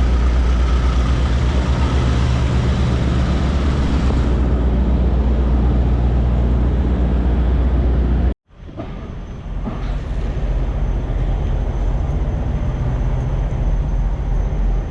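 Semi-truck engine running with a steady low rumble, heard from inside the cab. About eight seconds in the sound cuts out for a moment and comes back quieter.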